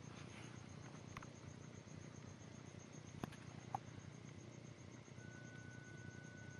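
Near silence: quiet room hiss with a few faint, soft clicks, and a faint steady high tone that starts about five seconds in.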